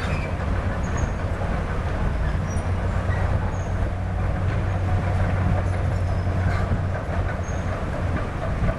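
Heavy diesel earthmoving machinery running steadily, with a deep, even engine drone.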